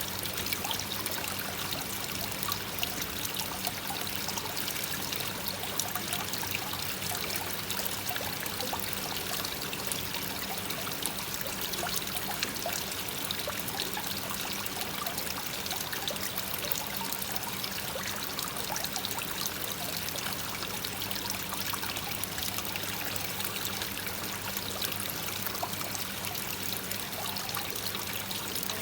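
Koi pond waterfall, water pouring and trickling steadily into the pond.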